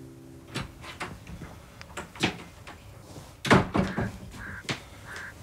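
Wooden front door being opened and shut, a run of knocks and latch clicks with the loudest clatter about three and a half seconds in, followed by footsteps on a tiled porch.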